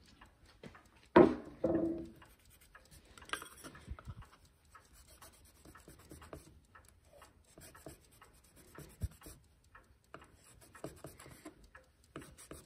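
Cloth wetted with acetone rubbing and scrubbing the edges of a round glass clock crystal, in small irregular scratchy strokes as the old varnish dissolves. A brief louder sound comes about a second in.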